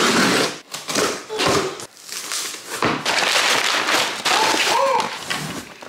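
A cardboard box being cut open and crumpled brown kraft packing paper pulled out of it, crinkling and rustling in several loud bursts.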